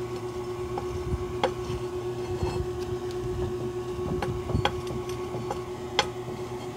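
Worn lower ball joint knocking a few times as the suspension arm is levered upward with a bar: the play in the joint is the sign that the ball joint is loose and needs replacing. A steady low hum runs underneath.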